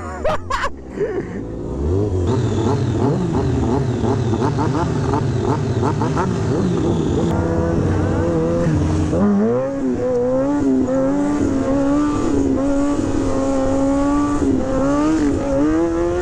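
Motorcycle engines running and being revved, with quick blips in the first half. From about nine seconds in, one engine is held at high revs, its pitch wavering up and down.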